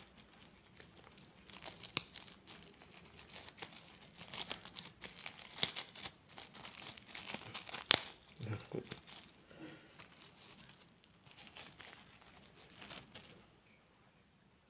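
Thin plastic packet being torn and crumpled open by hand: a dense run of crinkles and crackles, with one sharp crack about halfway through. It stops about a second before the end.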